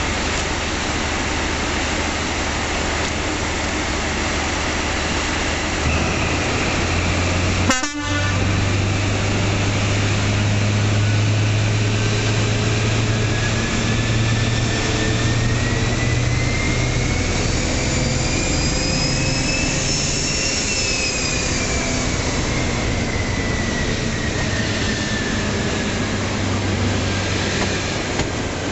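High Speed Train (InterCity 125) diesel power car running with a steady low engine hum that strengthens about six seconds in, as it powers up to depart. From about ten seconds a whine rises slowly in pitch for some ten seconds, then falls as the train pulls away. There is a sharp click near eight seconds.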